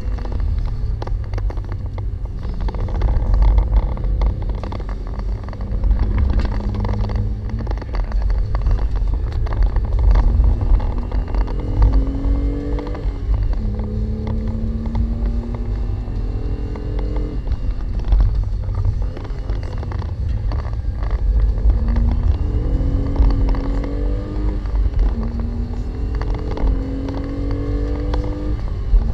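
Renault Clio V6's mid-mounted 3.0-litre V6, heard from inside the cabin, revving up through the gears under hard acceleration, the pitch climbing and dropping back at each upshift, over a deep steady rumble.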